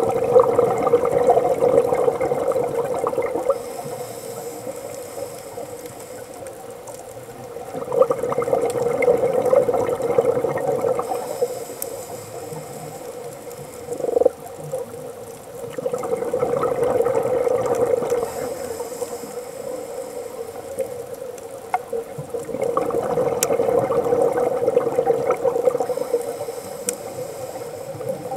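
Scuba diver breathing through a regulator underwater: a rush of exhaled bubbles comes four times, about every eight seconds, each lasting a few seconds, with a soft hiss of inhaling between them.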